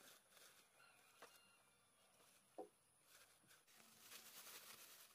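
Near silence, broken by a few faint clicks and light rustles.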